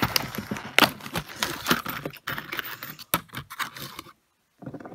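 A plastic bag of small screws being handled, crinkling, with many small clicks as the screws rattle against each other. The sound cuts out completely for a moment a little after four seconds in.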